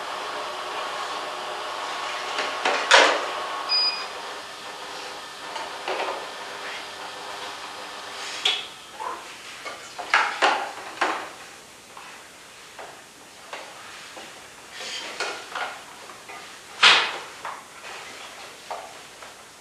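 Slow juicer motors humming steadily for the first few seconds, then fading. After that come scattered knocks and clatters of plastic and glass juice jugs and containers being picked up and set down on tables, the sharpest about three seconds in and again near the end.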